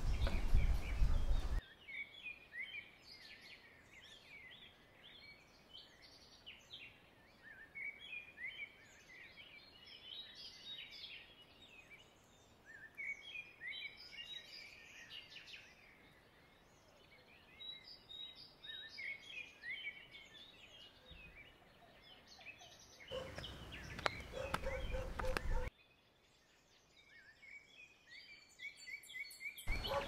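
Many small birds chirping and twittering in quick, short, overlapping calls over a faint background hiss. A louder noise opens the stretch, and another louder noisy passage lasting a few seconds comes in near the end.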